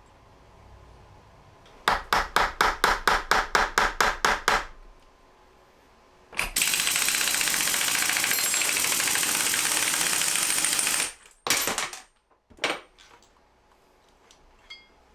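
A power tool hammering in about a dozen quick strokes, roughly four a second, for nearly three seconds. A steady rushing hiss follows for about four and a half seconds, then a few short clicks and knocks.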